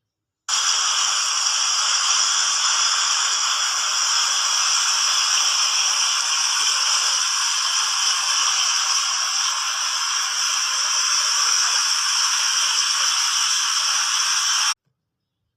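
Water fountain's jets and falling spray making a steady hiss. The sound drops to dead silence in the first half-second and again for about a second near the end, where clips are joined.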